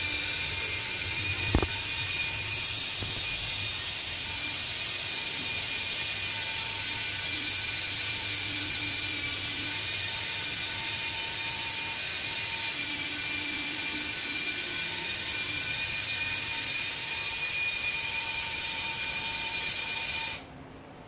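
A small 12 V DC motor runs steadily with a whir as it moves the automatic clothes-drying rack, with one sharp click about a second and a half in. It cuts off about a second before the end.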